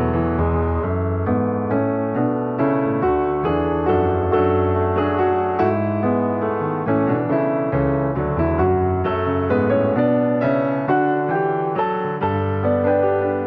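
Piano music: a flowing line of ringing notes over held low bass notes, with new notes struck a few times a second.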